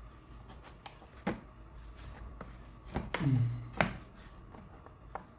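Scattered light clicks and taps of hard plastic parts being handled as the microscope's housing is opened up, the sharpest click nearly four seconds in. A brief low hum of a man's voice just after three seconds.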